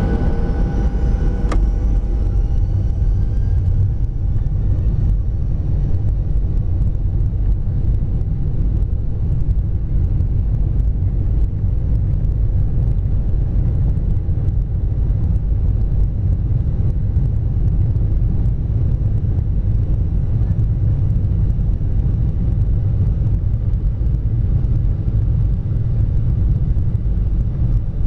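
Airliner jet engines at takeoff thrust heard from inside the cabin: a loud, steady low rumble as the plane rolls down the runway, with a faint rising whine in the first few seconds.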